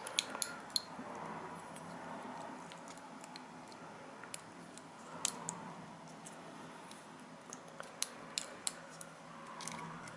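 Light, irregular clicks and taps of fine metal tweezers on the small plastic clips and circuit board of an N gauge model locomotive as its parts are handled.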